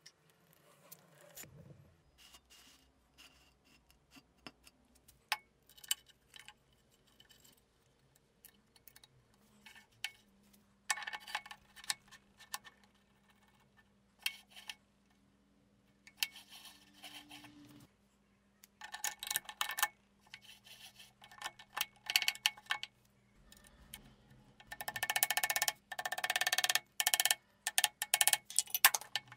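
Small steel parts of a drill press's quill feed hub clinking and scraping as the hub and its handle rod are fitted, with scattered clicks at first and then several bursts of rapid metal-on-metal rattling, the loudest near the end.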